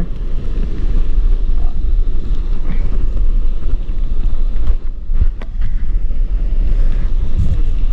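Wind buffeting the microphone in a loud, steady rumble, with a few brief knocks about five seconds in.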